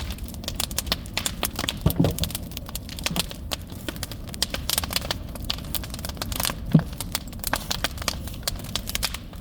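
Large bonfire crackling and popping: a dense run of sharp, irregular cracks over a steady low rumble, with a louder pop about two seconds in and another about seven seconds in.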